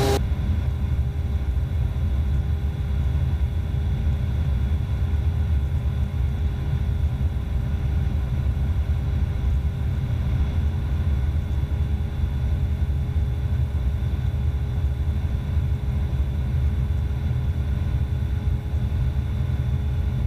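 Cockpit drone of an Evektor SportStar light sport aircraft in flight: its Rotax 912 flat-four engine and propeller running steadily at cruise, a deep hum with a few steady tones above it.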